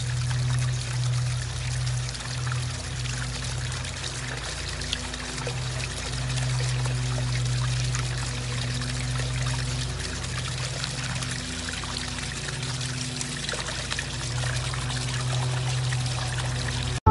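Water running steadily along a concrete channel, with a low hum underneath that breaks off and comes back every second or two.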